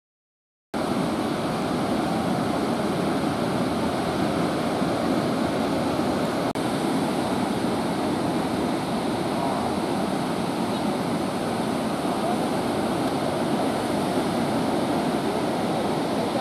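Steady rush of breaking ocean surf, starting abruptly under a second in, with a brief dip about six and a half seconds in.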